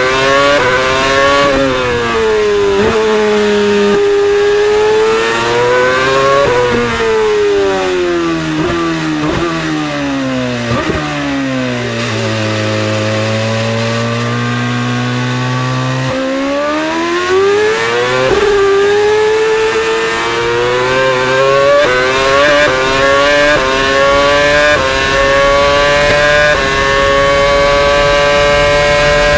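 2013 Mercedes Formula One car's 2.4-litre V8 heard onboard, revving hard and climbing in short steps through quick upshifts, then dropping away through downshifts under braking. Near the middle the revs sink to their lowest for about four seconds before climbing again through a fast run of upshifts.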